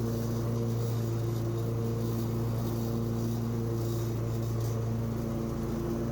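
Husqvarna lawn mower engine running steadily at a constant speed while cutting grass: a continuous low drone with fainter higher tones that come and go.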